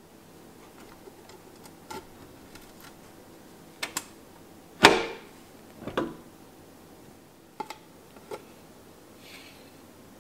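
Kitchen utensils and containers knocking and tapping on a worktop as they are handled: scattered light taps, a pair of quick knocks, then one loudest knock with a short ring, and a few lighter taps after it.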